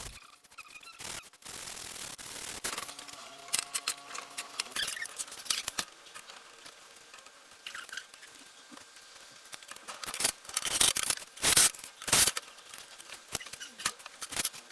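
Hand work on a wooden table top: scattered scrapes, rubbing and light knocks, with a louder run of rasping scrapes about ten seconds in.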